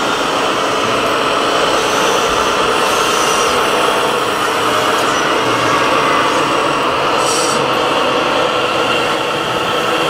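Steady running of radio-controlled model construction vehicles, a Scania 8x4 dump truck among them, heard as a continuous engine-like drone and whine. A brief high hiss comes about seven seconds in.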